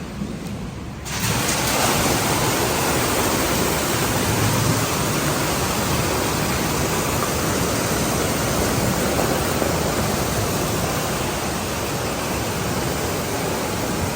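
Steady rushing of churning water in a spa pool, getting louder about a second in and then holding steady.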